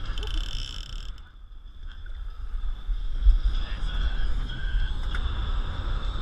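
Wind buffeting the microphone, a low rumble, with a brief higher hiss in the first second.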